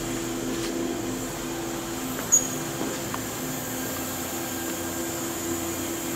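Steady hum of a powered-up Haas Super MiniMill CNC vertical machining center: two low tones held level with a faint high whine over a hiss. A single light click a little over two seconds in.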